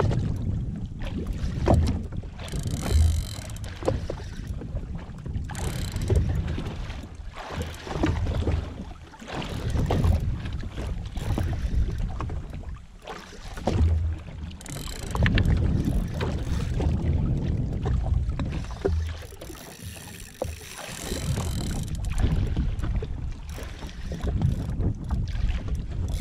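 Wind buffeting the microphone in uneven low gusts, with water lapping and splashing against the hull of a jet ski drifting on the open sea, and a few scattered clicks.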